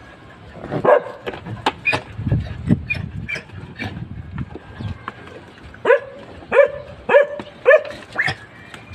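Dog barking five times in quick succession near the end, after scattered short yips and knocks.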